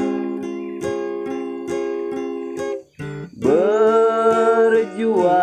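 A song with strummed acoustic guitar or ukulele chords. Past the middle, a voice scoops up into one long held sung note.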